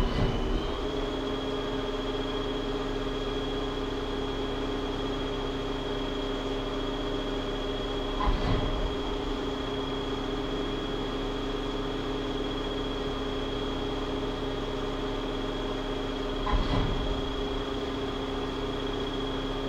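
Metal lathe running, with a steady hum and a high whine. A short louder burst comes at the start, again about eight seconds in and again near the end.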